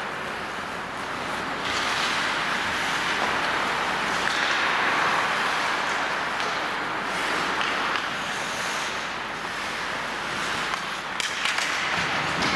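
Ice hockey skates hissing and scraping on the ice as the players skate, with a few sharp stick-and-puck clacks near the end.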